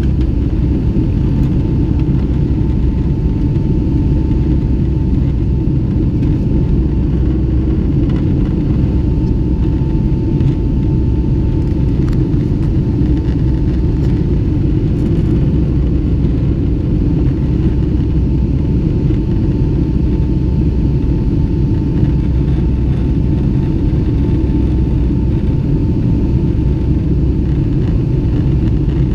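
Inside the cabin of a Boeing 757-200 climbing after take-off: the twin jet engines make a steady, loud low rumble with a faint steady whine above it.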